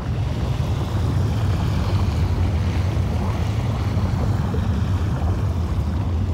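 Steady deep underwater rumble with a rushing, hissing wash of water over it: the sound of hot water welling up from a deep-sea hydrothermal vent. It grows a little louder about a second in.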